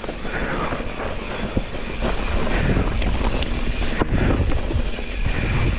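Downhill mountain bike descending a dry dirt trail: tyre noise on the dirt with the bike frame and parts rattling over bumps in many small clicks, under steady wind buffeting the microphone.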